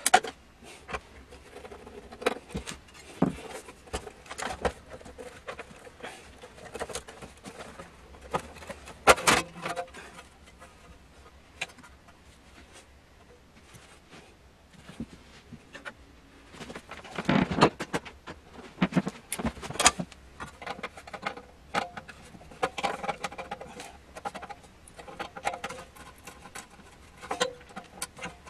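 Irregular clicks, knocks and light rattles of a power supply unit's metal casing, covers and screws being handled and taken apart, in fast-forwarded footage. The sounds come in clusters, with a few louder knocks about nine seconds in and again between about seventeen and twenty seconds in.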